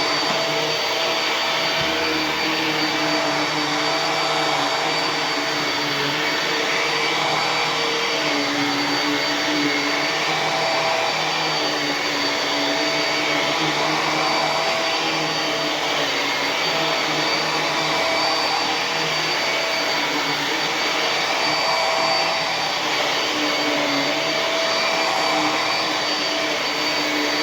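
Hoover PowerDrive Pet upright vacuum (UH74210) running on carpet with its brush roll engaged: a steady motor whine with a fixed high tone, its lower hum wavering slightly in pitch.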